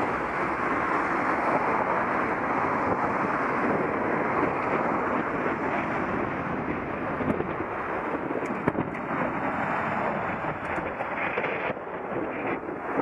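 Steady wind rush buffeting a bike-mounted action camera's microphone while riding, with road traffic noise beneath.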